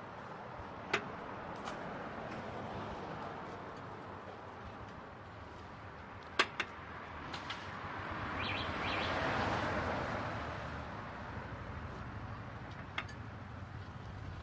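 Street traffic noise, with a vehicle passing by that swells up and fades away about eight to eleven seconds in. A few short sharp clicks stand out over it.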